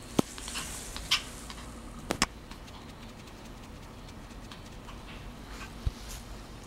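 A puppy's claws and paws tapping and pattering on a vinyl floor as it scampers about. Several sharp taps stand out: one just after the start, one about a second in, a quick double tap around two seconds, and one near six seconds.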